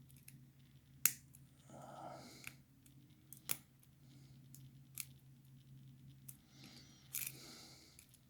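Lock pick and tension wrench working the pin tumblers of a laminated steel padlock: soft metallic scraping with a handful of sharp, spaced-out clicks, over a steady low hum.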